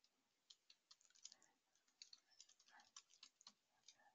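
Faint typing on a computer keyboard: a run of irregular keystrokes.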